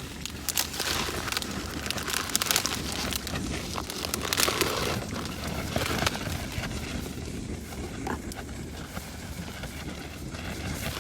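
Strong wind buffeting the microphone with a steady low rumble, mixed with irregular crackling and rustling.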